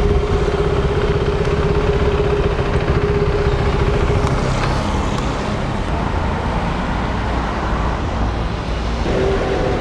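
KTM Duke 390's single-cylinder engine running at low speed, heard from the rider's seat. A steady tone sits over it for the first four seconds or so.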